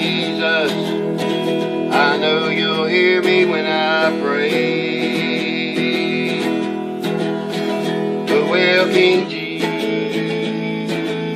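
Background music: a country-style song with acoustic guitar and a singing voice.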